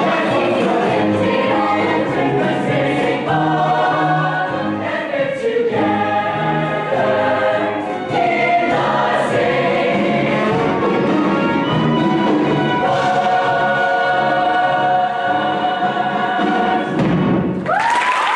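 Cast of a stage musical singing an ensemble number in chorus with instrumental accompaniment. Near the end they reach a held final note and applause breaks out.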